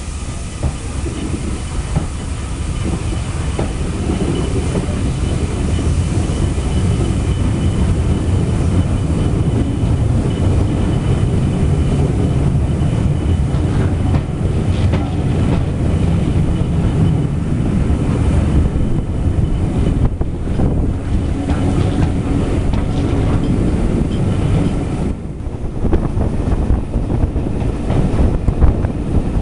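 Passenger train hauled by a Southern Railway Schools class 4-4-0 steam locomotive, heard from an open carriage window as it pulls away and gathers speed: coach wheels clattering over the rail joints, getting louder over the first several seconds.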